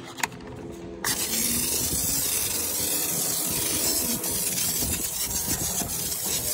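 Hand-held pump-up foam sprayer spraying wheel-cleaning foam onto a car's alloy wheel and tyre: a steady hiss that starts suddenly about a second in.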